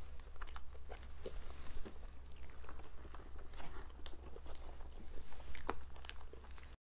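Close-miked eating sounds: a spoon digging into a soft glazed mousse cake and the small wet smacks and clicks of the mouth eating it, scattered irregularly over a low steady hum.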